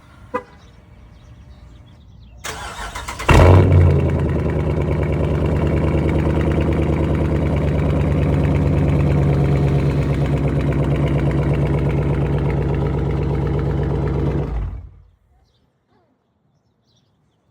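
Car engine cranked by the starter, catching about three seconds in with a brief loud flare, then idling steadily for about eleven seconds before being switched off. The exhaust valve has had its spring removed and been wired up, meant to stop a bad exhaust rattle.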